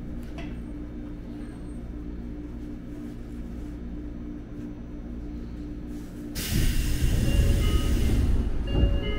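Electric train standing at a platform with a steady low hum; about six and a half seconds in, the passenger doors open with a loud rush of air lasting about two seconds.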